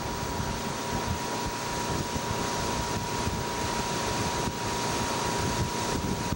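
Tow boat's engine running steadily under heavy wind buffeting on the camcorder microphone, with a constant high tone over the noise.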